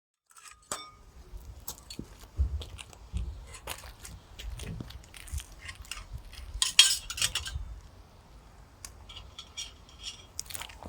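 Metal camping cookware and stove parts being handled: irregular clinks and knocks, with a short rustling hiss about seven seconds in, over a low wind rumble on the microphone.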